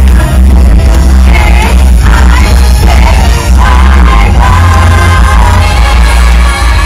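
Loud stage-show music with singing over a heavy, steady bass.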